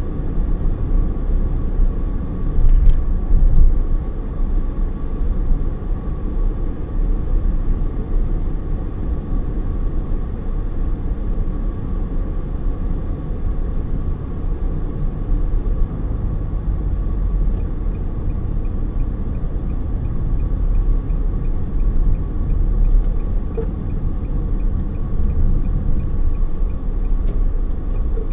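Steady low road and engine rumble inside a moving car's cabin. A little past halfway, an evenly spaced ticking starts and keeps going, which fits a turn-signal indicator.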